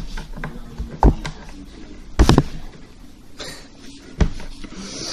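Knife stabbing into a pumpkin's rind: three sharp knocks, spaced unevenly over a few seconds, with faint scraping between them.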